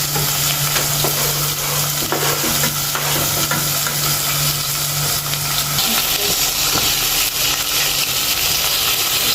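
Onions and green peppers sizzling as they fry in hot oil in a pan, a continuous hiss that grows louder in the second half. A steady low hum runs underneath and stops about six seconds in.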